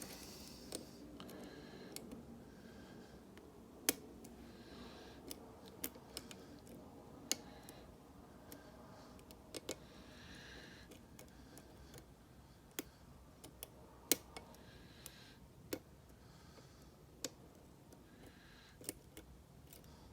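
Lock picking in a mortise cylinder: a hook pick and tension tool working the pin stack, giving faint scraping and sharp metallic clicks at irregular intervals, a few seconds apart.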